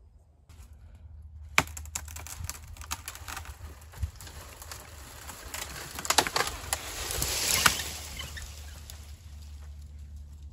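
A partly cut hedgerow tree trunk being pulled over by hand: a run of creaks and sharp cracks of splitting wood, building to a rush of breaking branches and a loud crack about seven and a half seconds in. The trunk snaps off instead of bending over at the cut, a failed attempt at laying it.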